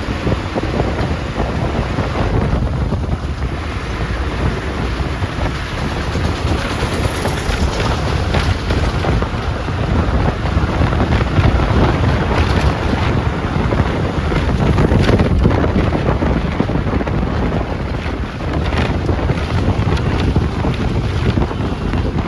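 Bus under way on the road: steady engine and road rumble, with wind buffeting the microphone.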